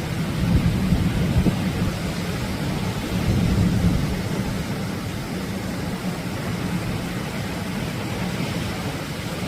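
Atlantic surf: waves breaking and washing in a continuous low rumble and hiss, swelling about a second in and again about three to four seconds in.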